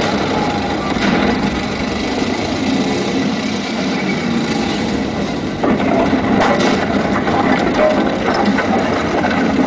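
Loud, steady mechanical rumble like heavy engines running, part of a projection show's soundtrack played over loudspeakers.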